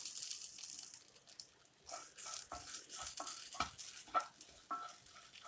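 Grated coconut being roasted in a pan and stirred with a spatula. A light hiss in the first second gives way to repeated short scraping strokes against the pan, some with a brief metallic ring.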